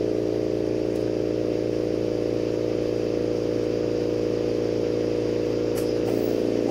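Steady machine hum made of several pitched tones, with a hiss underneath, from a running lampworking torch and its studio equipment. A faint click about a second in and another near the end.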